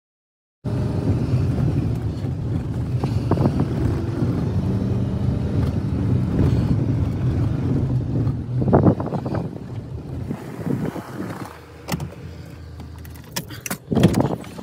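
Pickup truck driving on a dirt track, heard from inside the cab: a steady low rumble of engine and tyres that drops off about ten seconds in as the truck slows and stops. A few sharp knocks follow near the end.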